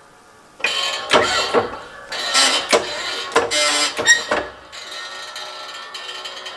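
Metal-on-metal scraping, clicking and knocking as a new bushing and the press ram are set on a Ford Model A distributor housing in a shop press, with some ringing metal tones. The clatter starts about half a second in and eases to a fainter rattle near the end.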